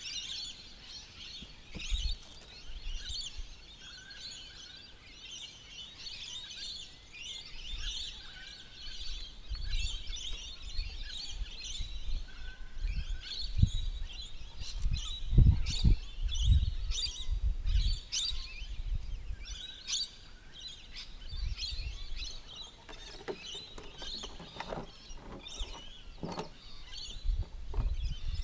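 Birds chirping and calling busily and without a break, with a repeated short whistled note among them. Irregular low rumbles and a few sharp knocks come and go, loudest around the middle.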